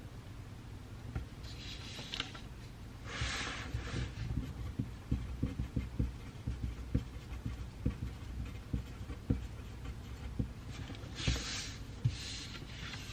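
Pencil writing on paper: scratchy strokes around two and three seconds in and again near the end, with many small light ticks of the pencil in between.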